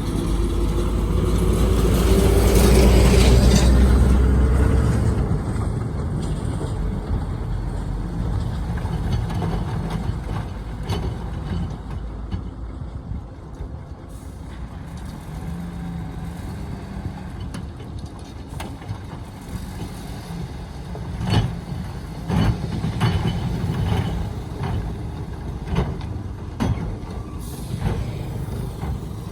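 Heavy diesel dump truck engine running, loudest and revving up then easing off in the first few seconds, then settling into a steady rumble. Several sharp knocks come through in the later part.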